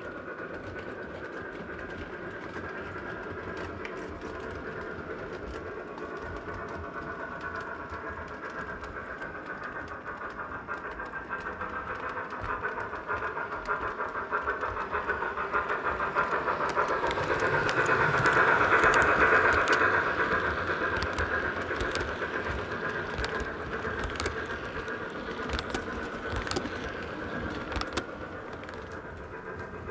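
Lionel O gauge Southern Pacific Consolidation steam locomotive running on three-rail track: electronic steam chuffing from its chuff generator over the rumble of wheels and clicking rail joints. It grows louder as the engine approaches, peaks about two-thirds of the way through, then eases off.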